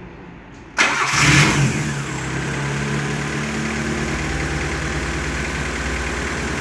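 Freshly rebuilt Honda Civic 1.5 16-valve four-cylinder engine starting: it catches abruptly about a second in, flares up briefly, then settles into a steady idle, running without trouble.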